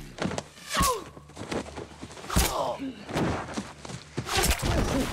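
A man crying out and groaning without words while being forced down and held on the ground, with scuffling and several heavy thuds of bodies hitting the forest floor.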